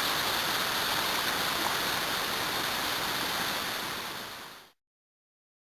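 Mountain creek water rushing steadily over rocks, fading out about four seconds in and then cutting to silence.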